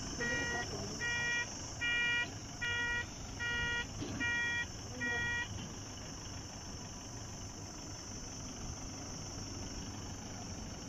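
Vehicle reversing beeper sounding a steady train of electronic beeps, about two a second, which stops about five and a half seconds in as the car stops backing up.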